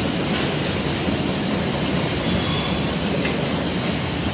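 Steady machinery noise of an automated LED production floor, with a couple of faint clicks.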